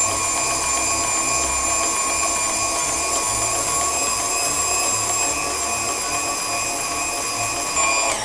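KitchenAid tilt-head stand mixer running on high with a steady motor whine, whipping hot sugar syrup and gelatin into marshmallow.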